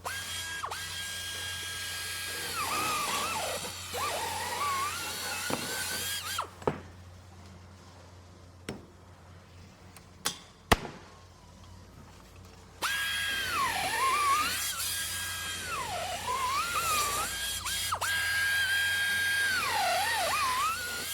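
Handheld power drill running in two long spells with a high whine that dips in pitch again and again and comes back up. Between the spells, a few seconds of quiet with several sharp clicks and knocks.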